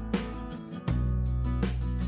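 Background instrumental music: plucked guitar notes over low sustained bass, the bass dropping out briefly about half a second in and returning just before the one-second mark.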